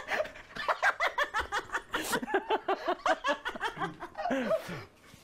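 Two men laughing hard, a long run of quick ha-ha bursts that dies away about four and a half seconds in.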